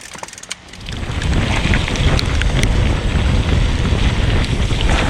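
Wind buffeting the microphone and mountain bike tyres rolling over a dirt trail, a steady rumble that builds up about a second in, with scattered clicks and rattles.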